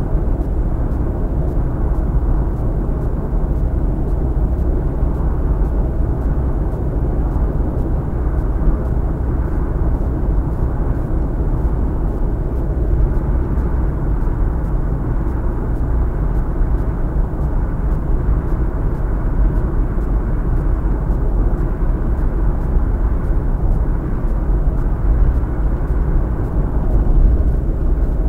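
Steady low rumble of road and engine noise inside a Honda Fit cruising at expressway speed, even throughout with no gear changes or other events.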